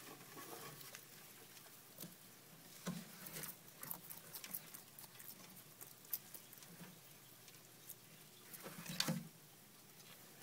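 Faint scattered taps and scratchy rustles, louder in two short clusters about three seconds in and again near the end.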